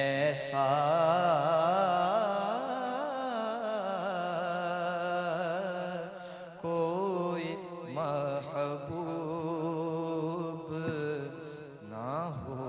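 A man singing a naat, an Urdu devotional song, solo in long, wavering, ornamented phrases over a steady low drone, with brief breaks between phrases.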